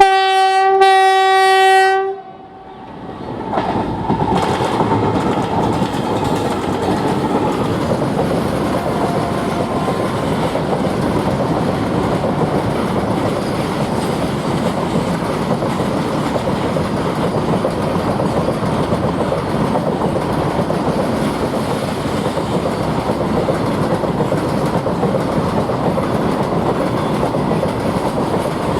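WDG 6G diesel locomotive sounding a single-note horn, which sounds like an electric locomotive's, for about two seconds. After a brief lull the train runs past with steady wheel clatter over the rail joints for the rest of the time.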